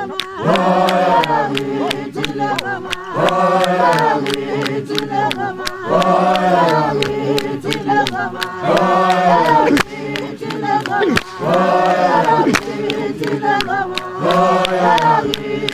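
Group of men and women singing a Mpondo traditional song a cappella in repeated phrases. Handclaps keep a steady beat over the voices.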